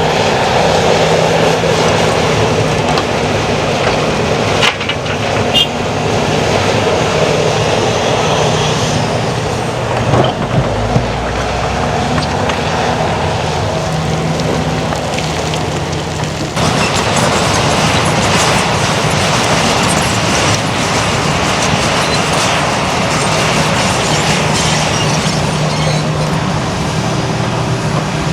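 Heavy diesel earthmoving machinery working under load, a steady engine drone with a few knocks about five and ten seconds in. The sound changes abruptly a little over halfway through.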